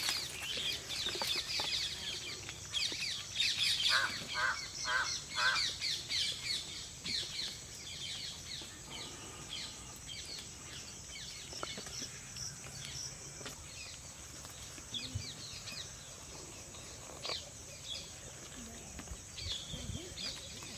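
Birds calling, with chickens clucking among them: many short calls, busiest in the first several seconds, including a run of four quick calls about four seconds in.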